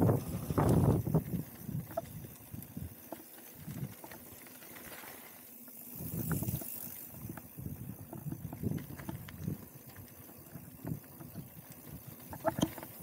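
Mountain bike rolling down a dirt trail: tyre rumble over the ground with irregular knocks and rattles from the bike. It is louder in the first second and again near the end, with a quieter stretch in between.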